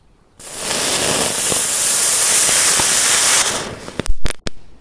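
A small firework hissing steadily as it sprays for about three seconds, then fading. Near the end come three sharp firecracker bangs in quick succession.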